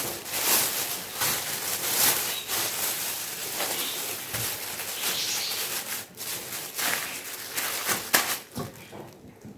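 Hands handling a ball of pizza dough over a steel tray and wrapping it in a thin plastic bag: a busy rustling and crinkling with many small clicks, dying down near the end.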